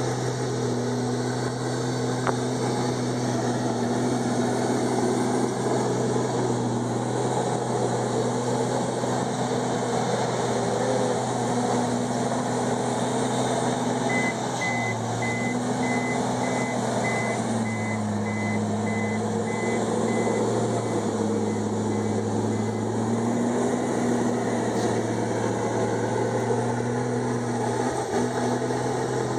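Komatsu D51EX bulldozer's diesel engine running steadily under load, its pitch dropping for several seconds midway and then recovering. A back-up alarm beeps evenly at the same time and fades out.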